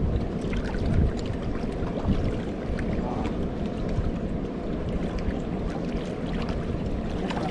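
Steady wind rumbling on the microphone, with water lapping against the shoreline boulders.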